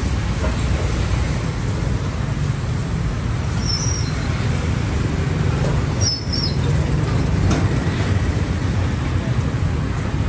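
Steady city street traffic noise: a continuous low rumble of passing vehicles, with a couple of faint brief high chirps.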